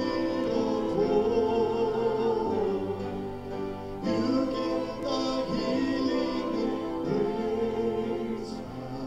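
Hymn singing in a church service: voices singing over sustained instrumental accompaniment, in long held phrases with a new phrase beginning about four seconds in.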